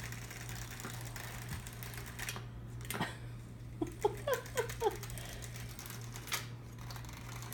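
Cheap battery-powered butterfly cat toy running with a steady low hum and irregular light clicking and tapping as cats bat at it. About four seconds in, a quick run of short chirp-like sounds.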